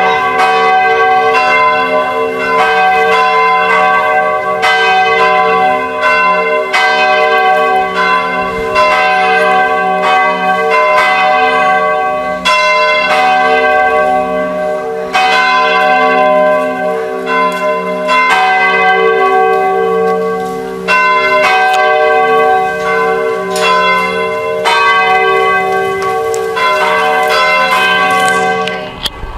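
Church bells ringing in a continuous peal, several bells struck over and over, their deep tones humming on beneath each new strike.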